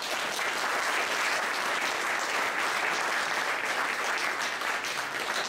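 Audience applauding: many people clapping together in a dense, steady patter that begins to die away near the end.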